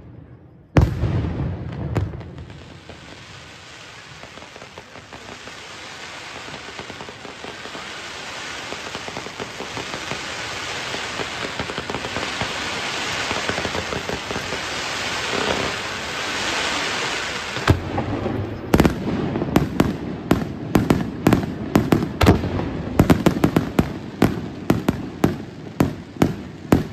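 Fireworks display: a sharp bang about a second in, then a long hissing crackle from ground fountains that grows steadily louder for some fifteen seconds. About two-thirds through it gives way to a quick run of sharp bangs, two or three a second, as aerial shells burst.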